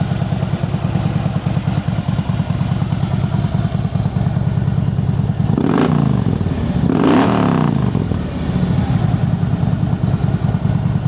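2012 Harley-Davidson Ultra Limited's Twin Cam 103 V-twin idling through Vance & Hines slip-on mufflers with a steady pulsing beat, blipped twice a little past halfway: two quick revs that rise and fall before it settles back to idle.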